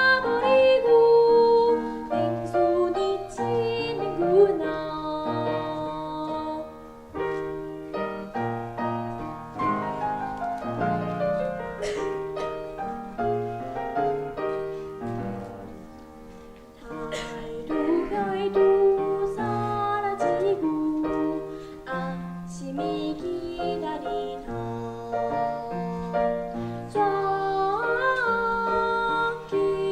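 A young girl singing a Korean children's song with piano accompaniment. The voice holds notes with vibrato, and the music briefly softens a little past the middle before building again.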